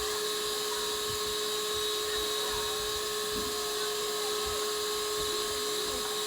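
A small electric motor or fan running steadily, a constant whine over an even hiss.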